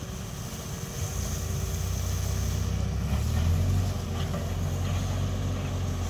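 A water tanker truck's engine running steadily, growing louder about a second in and again around three seconds, with the faint hiss of its water jet spraying.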